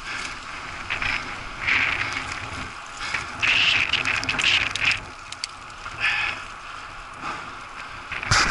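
Mountain bike riding down a muddy dirt and grass track: tyre noise on the dirt with rattling and clattering from the bike over bumps, coming in loud bursts. A cluster of sharp rattles comes near the middle and again at the very end.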